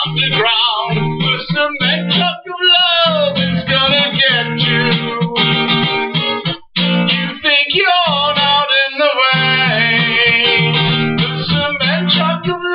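Acoustic guitar music: strummed chords with a higher melody line whose notes glide up and down, in an instrumental break of a song.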